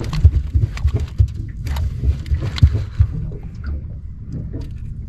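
Wind gusting on the microphone, with a scattering of sharp knocks and taps that are densest in the first three seconds and thin out after.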